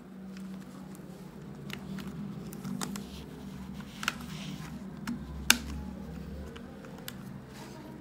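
Small plastic clicks and handling noises as a replacement laptop keyboard and its ribbon cable are worked into the connector on a Dell Latitude D620, with a sharp click about five and a half seconds in.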